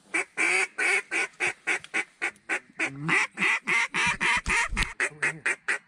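Duck call blown by a hunter: a loud, rapid string of short quacks, about five a second, at a steady pace throughout.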